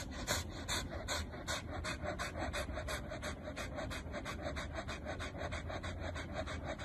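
Tricolour corgi panting rapidly and evenly, about five breaths a second.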